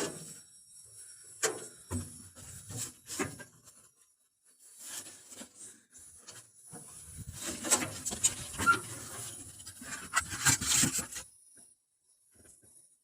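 Irregular scraping and rubbing with scattered clicks, busiest and loudest between about seven and eleven seconds in.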